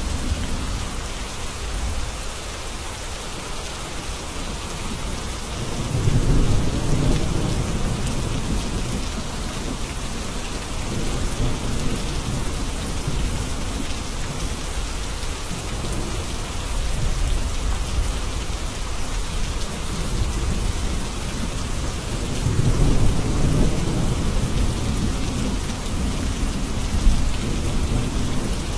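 Steady rain with low rolling thunder that swells several times, most strongly about six seconds in and again past the twenty-second mark.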